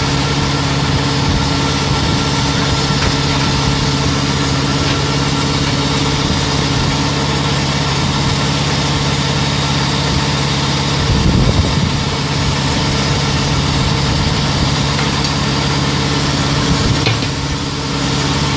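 Milking system's vacuum pump running steadily while cold rinse water is drawn up the wash hose from a jar for the final rinse of the pipeline, with a hiss of air and water over the pump. A brief louder surge comes a little past halfway.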